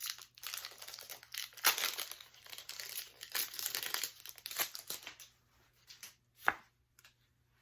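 Foil booster-pack wrapper being torn open and crinkled, a dense crackling that thins out about five seconds in, with one sharp click near the end.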